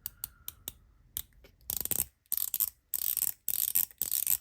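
Mechanical milk lid fidget being worked by hand: a few light clicks, then a run of quick ratcheting clicks in short bursts about twice a second.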